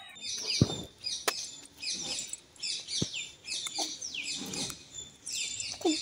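Green parrot calling over and over, short downward-sliding calls about two a second, with a thump about half a second in and a sharp tap about three seconds in.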